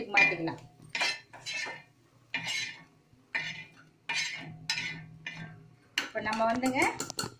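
Metal spatula scraping scrambled egg across a flat iron tawa (griddle) and into a steel bowl, in short strokes about once a second.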